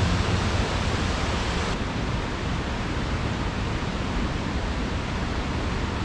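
A waterfall in flood, swollen by rain and snowmelt, pouring heavily over a rock ledge: a steady rushing of water.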